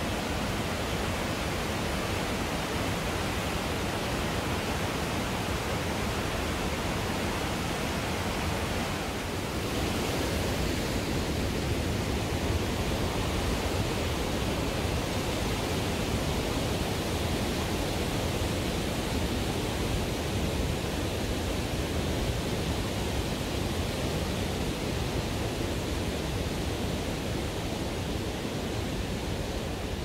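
Steady rush of a cascading waterfall and white-water creek below a suspension bridge. About ten seconds in the rush grows slightly louder and deeper.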